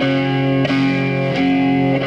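Music: sustained guitar chords with effects, a new chord struck about every two-thirds of a second.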